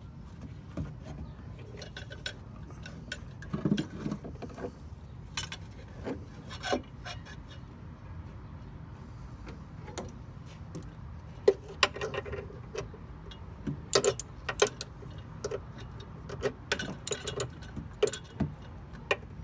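Irregular small metallic clicks and clinks from hands working cable terminals on a classic Fiat 500's old voltage regulator. The clicks come thicker from about halfway through.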